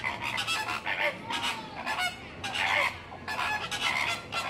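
A flock of flamingos calling, many short goose-like honks overlapping without pause. This is the group honking that goes with their head-flagging courtship display, heads jerking left and right.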